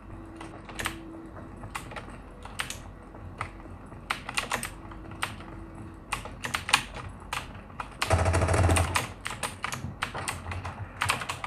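Computer keyboard keys clicking in quick, irregular strokes, as in gameplay movement and actions. About eight seconds in, a louder, deeper rumbling noise lasts for about a second and a half.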